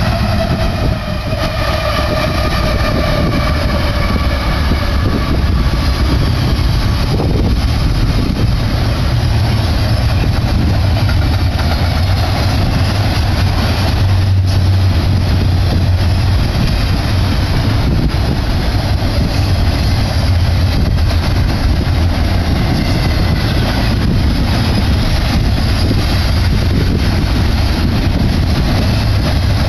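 Union Pacific double-stack container train passing at speed. In the first few seconds the lead locomotives go by with tones falling in pitch, and after that the stack cars keep up a loud, steady rumble of wheels on rail.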